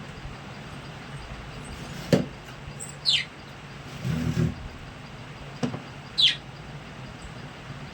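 Budgerigar chirping: two quick, high chirps that slide steeply down in pitch, a few seconds apart. Between them come a couple of sharp clicks and a brief low buzz.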